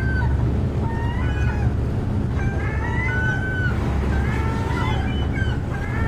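Gulls calling: short calls that rise and fall in pitch, several overlapping, coming in clusters every second or two, over a steady low rumble.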